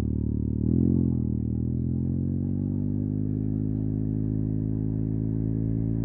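Yamaha TMAX 560's parallel-twin engine through an Akrapovic carbon full-system exhaust, rising in pitch about a second in, then running at a steady note.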